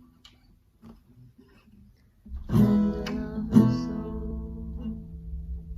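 Music: an acoustic guitar strums two chords about a second apart, letting them ring out, after a couple of seconds of near quiet with faint clicks.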